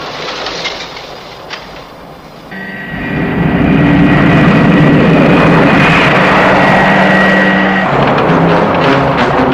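Thunderbird 2's jet engines, a loud steady rush with a high whine, cutting in about two and a half seconds in after a quieter hiss with a few clicks. The engine sound changes pitch near the end.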